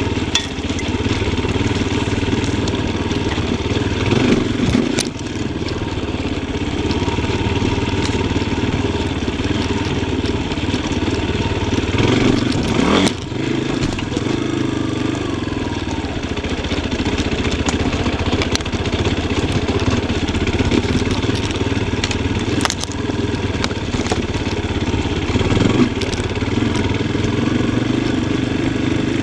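Yamaha Tricker XG250's single-cylinder four-stroke engine running under varying throttle during off-road riding, with a few sharp knocks.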